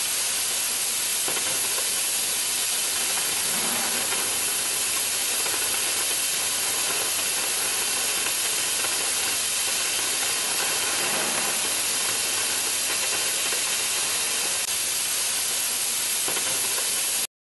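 Oxy-fuel cutting torch of a portable flame-cutting carriage hissing steadily as its jet cuts through steel plate. The hiss stops suddenly near the end.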